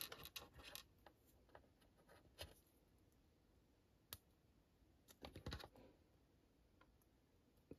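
Near silence with faint, scattered clicks and taps of small plastic Playmobil pieces being picked up and set down on a desk. There is a little cluster of clicks at the start and another about five seconds in.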